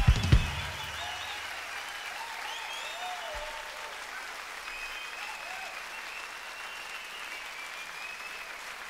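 Two loud hits at the very start, the band's closing accents as a held low bass note stops, then an audience applauding and cheering, with shouts rising and falling over the clapping.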